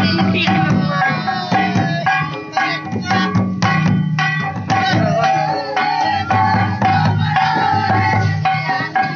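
Mandar barrel drums and a large hand drum beaten in a steady karma dance rhythm, with singing over the drumming.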